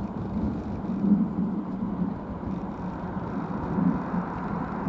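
Rumble of a Boeing E-3 Sentry's four Pratt & Whitney TF33 turbofan engines as the jet rolls along the runway just after touchdown. It is heard from a distance, and it swells and fades unevenly.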